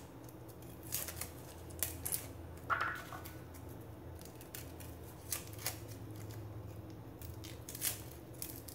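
Garlic cloves being peeled with a cleaver: scattered faint, crisp clicks and scrapes of the blade catching and stripping the papery skins, over a steady low hum.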